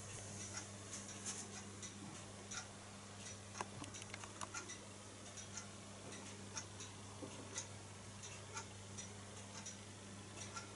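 Stuart model steam hammer working, its hammer head striking the anvil block in light, irregular ticks, a few a second. A steady low hum runs underneath.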